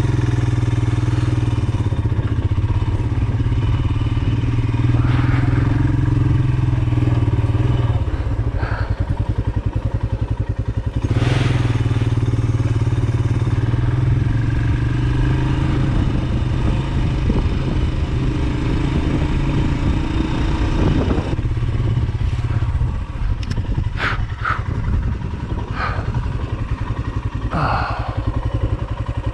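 Royal Enfield Himalayan's single-cylinder engine running as the motorcycle rides along a sandy dirt road. The engine note drops briefly about a third of the way through and eases again about two-thirds in, with a few short clicks and rattles near the end.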